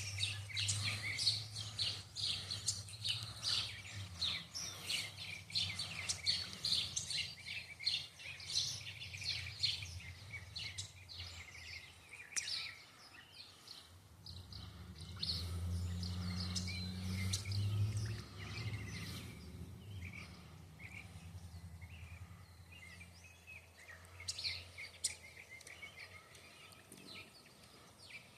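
Small birds chirping and twittering, many quick high calls overlapping, busiest through the first half and picking up again near the end. A low steady hum comes in twice, at the start and again past the middle.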